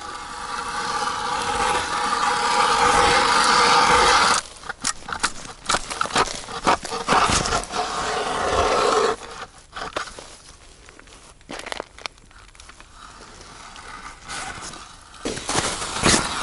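Hand ice auger drilling a fishing hole: the blades grind steadily through the ice for about four seconds. Then comes a run of sharp knocks and scrapes, a quieter stretch with a few clicks, and the grinding starts again near the end.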